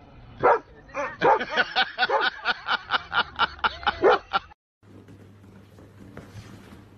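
Siberian husky barking: one call, then a fast run of short barks at about five a second that stops suddenly. After that there is only a faint low hum of room tone.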